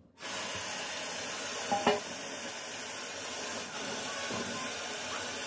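Kitchen tap running steadily as peeled carrots are rinsed under it, with a brief clatter about two seconds in.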